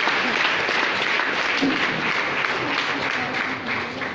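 Audience applauding: dense, steady clapping from a large crowd that thins a little near the end.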